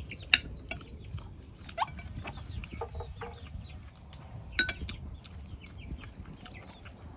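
Chickens clucking, with a few sharp clinks of a spoon and fork against a plate.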